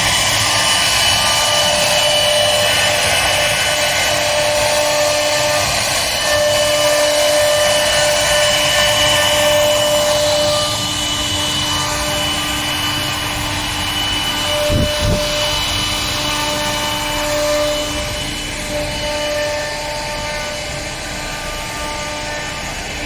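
CNC router at work: the spindle's steady whine and the cutter running through wood, with the drive motors' whine tones starting and stopping as the gantry moves. A brief low thump comes about halfway through.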